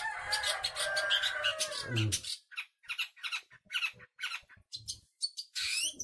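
Caged long-tailed shrike (cendet) calling: a harsh, drawn-out squawk for about two seconds, then a quick run of short, sharp chirps, about four a second.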